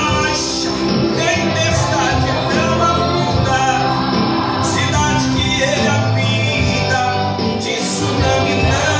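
A gospel song with a man singing over instrumental backing, played through a PA system.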